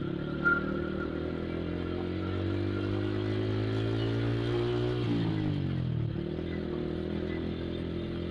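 Motorcycle engine under way in traffic. Its note climbs slowly as it pulls for about five seconds, drops quickly as the throttle is eased, then runs steadily. A short knock comes about half a second in.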